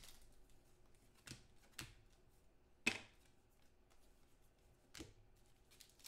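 Trading cards and a foil pack being handled: a few soft clicks and taps, the sharpest about three seconds in, against near silence.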